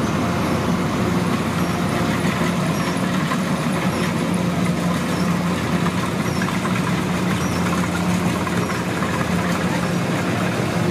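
Kubota DC105X combine harvester's diesel engine running steadily with a constant low hum.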